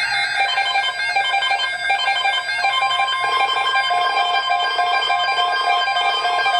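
Background music: an electronic melody of short repeating notes over a few held tones.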